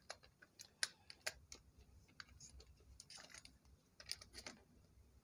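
Faint, irregular clicks and taps of a plastic kids' quad roller skate being turned over in the hands, its parts knocking lightly against each other.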